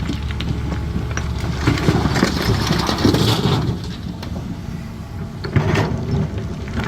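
Caterpillar 320D excavator's diesel engine running steadily, with louder stretches of stone rattling and scraping as it loads rock, about two to three and a half seconds in and again near six seconds.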